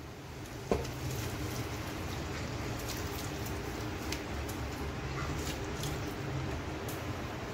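Beef and onion masala sizzling in a hot metal pot: a steady sizzle that sets in after a sharp clunk about a second in, with faint ticks through it.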